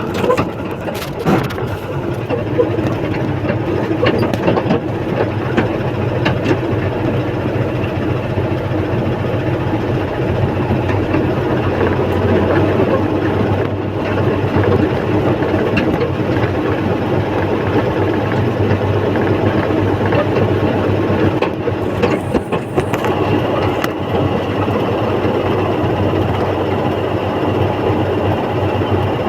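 Heavy engine running steadily at a constant pace, with a few sharp knocks in the first couple of seconds and a brief rattle about three-quarters of the way through.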